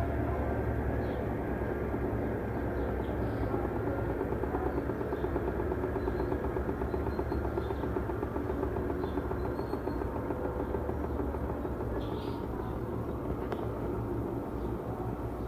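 Mueller Energy 8 kg automatic washing machine running its intermediate spin: a steady motor hum and drum rumble, easing off slightly near the end.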